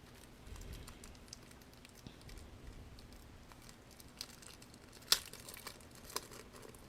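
Plastic packaging crinkling as a small keychain is handled and unwrapped, with a few sharp clicks, the loudest about five seconds in.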